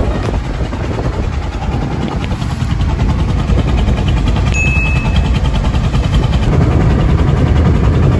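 Fishing boat's engine running steadily underway, a loud, even low rumble with a rapid beat.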